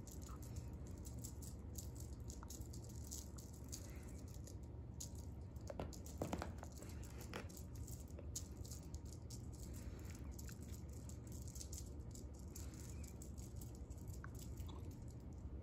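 Faint, light rattling and ticking of a feather wand cat toy being jiggled while a kitten bats at it, with a few slightly louder soft knocks about six to seven seconds in.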